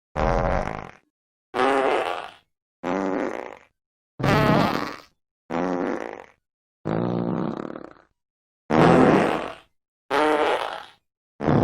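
A series of fart sound effects: about eight separate blasts, each roughly a second long, with silent gaps between. Some have a buzzing pitch that wavers up and down, and others are rougher and noisier. Another one starts right at the end.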